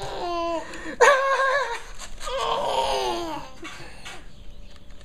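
A man and a toddler laughing together in three bouts, the last one trailing off and falling in pitch, then a quieter moment near the end.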